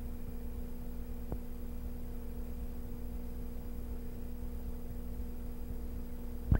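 A steady low hum with two constant tones over a faint rumble, broken by a faint click about a second in and a sharp click at the very end.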